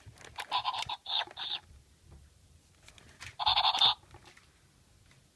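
Interactive plush puppy toy playing electronic barks through its small, tinny speaker when a finger is put in its mouth: three short yaps in the first second and a half, then a longer one about three and a half seconds in.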